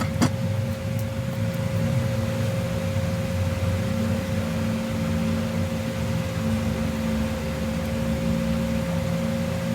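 A steady machine hum, with a constant mid-pitched tone running through it. A couple of sharp clicks right at the start.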